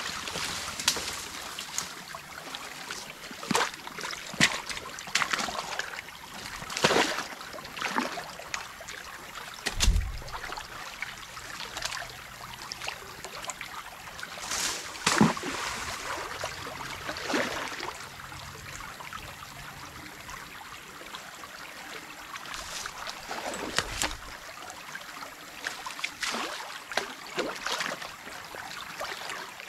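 Water trickling and flowing through a beaver dam, with irregular splashes and sloshes as sticks and debris are pulled out of it.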